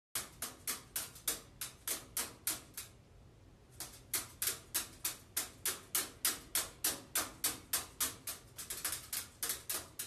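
A steady run of sharp clicks or knocks, about four a second, that pauses for about a second near three seconds in, then resumes and quickens near the end.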